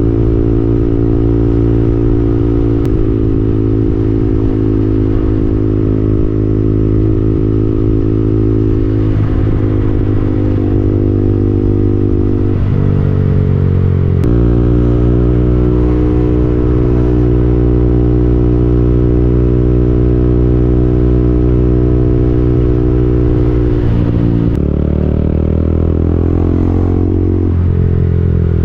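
KTM Duke 200's single-cylinder engine running under way at steady revs. The note drops and climbs back again around the middle and once more near the end, as the revs change.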